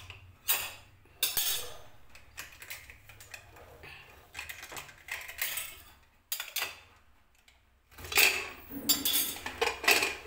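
Aluminium pressure cooker being opened after cooking: a steel spoon clinks against the lid and lifts the whistle weight, letting out several short hisses of leftover steam. The lid clatters and scrapes as it is twisted open near the end.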